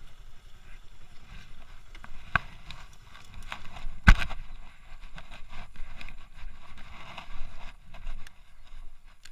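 Motorcycle riding over a bumpy dirt track: a low rumble of wind on the microphone with rattles and knocks from the bumps, the sharpest about two and a half and four seconds in.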